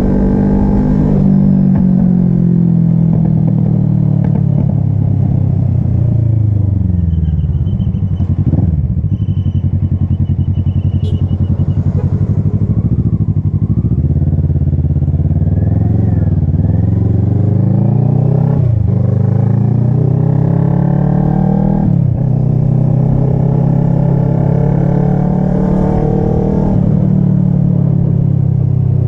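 Kawasaki ER-6n's 649 cc parallel-twin engine running on the move, its pitch sinking and climbing again several times, with a longer steady stretch near the end.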